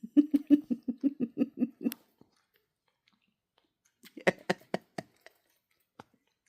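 A cat licking another cat's fur while grooming it: a quick run of tongue strokes, about six a second for two seconds, then a shorter run of clicking licks about four seconds in.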